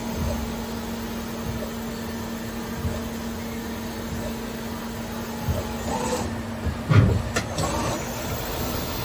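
EMCO Turn E 45 CNC lathe running with a steady mechanical hum, its spindle turning. About two-thirds of the way in the hum stops, followed by a loud clunk and some rattling.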